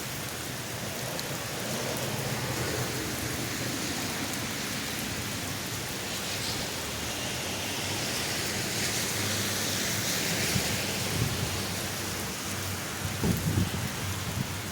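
Heavy rain falling steadily, with a low rumble of thunder under it through the middle and a few louder low thumps near the end.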